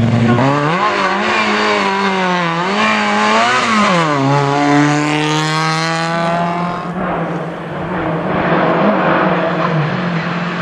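Rally car engine at full effort on a stage, its pitch rising and falling repeatedly through gear changes. It then holds a steady note for a few seconds and turns rougher and noisier near the end.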